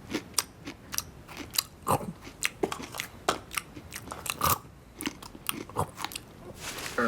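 Irregular sharp crunching clicks, a few a second, from an animated cartoon's soundtrack.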